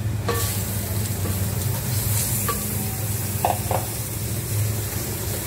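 Raw mutton mince hitting hot oil in a metal pot: a sizzle starts suddenly about a third of a second in and keeps going as the mince begins to fry. A few knocks of the wooden spoon against the pot come in the second half.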